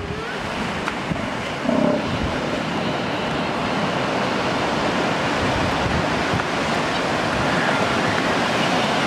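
Ocean surf breaking and washing up a beach, a steady rush, with wind on the microphone.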